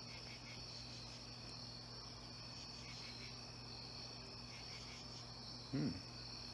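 Crickets chirping in a steady, high, unbroken trill, with a brief voice-like sound from a person about six seconds in.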